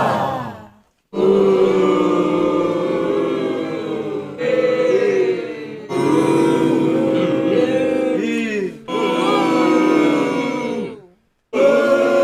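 Audience sound effect: the massed voices of a large crowd, in several short clips joined by abrupt cuts, with brief silences about a second in and near the end.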